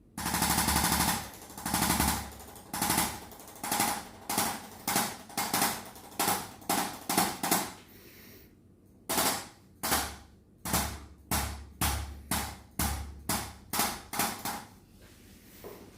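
A series of sharp percussive strikes on the back, two to three a second, during chiropractic treatment of tight mid-back muscles. It opens with a rapid rattling burst and pauses briefly about eight seconds in.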